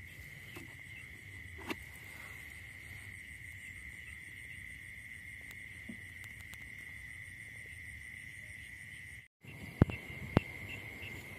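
Night insects trilling steadily in one high, unbroken tone. About a second before the end come two sharp, loud clicks.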